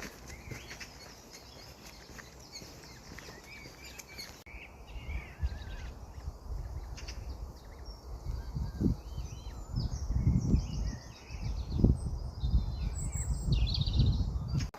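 Small birds chirping and singing in woodland over a steady low hum of distant motorway traffic. From about halfway there are irregular low thumps, which grow louder near the end.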